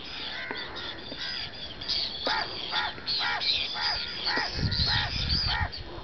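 Birds calling: a run of harsh repeated calls, about two a second, from about two seconds in. A low rumble comes in near the end.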